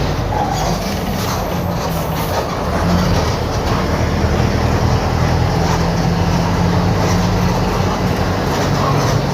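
Mercedes-Benz OF-1721 BlueTec 5 bus's diesel engine running with a steady low drone that shifts slightly in pitch, its exhaust holed and leaking.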